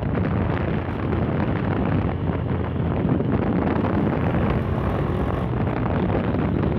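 Heavy wind noise buffeting the microphone on a moving Yamaha Fazer 150 motorcycle, with the single-cylinder engine running underneath.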